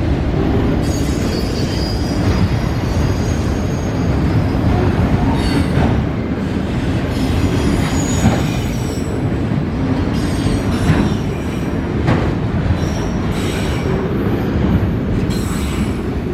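Freight train rolling past: a steady rumble of wheels on rail with occasional clacks, and high-pitched wheel squeal that comes and goes several times.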